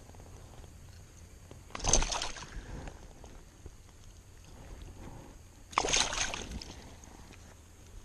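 Water sloshing and splashing twice, about four seconds apart, each a short burst lasting under a second.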